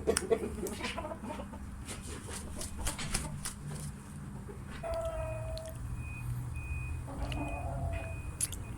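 Fighting fowl clucking, with a couple of short drawn-out calls in the second half and scattered scuffling taps, while a faint high beep repeats in the background.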